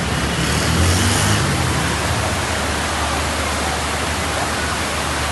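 Muddy floodwater rushing down a city street: a steady, even rush, with a brief low rumble about a second in.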